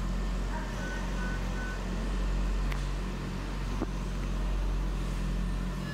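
Steady low electrical or machine hum, with three short high beeps about a second in, typical of hospital equipment at a newborn's cot.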